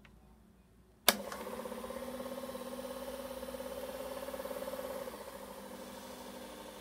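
Noris 8 Super 100 Standard 8 mm film projector switched on with a sharp click of its push-button control, then its motor and mechanism running with a steady hum and a fast flutter. About five seconds in the running note drops slightly and gets a little quieter.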